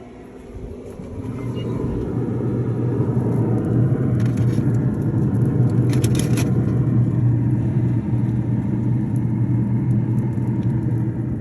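A motor vehicle's engine running with a low, steady rumble, growing louder over the first two seconds and then holding level.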